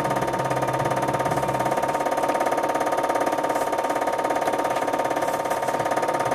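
A steady machine hum with a fast, even flutter, unchanging in pitch and loudness.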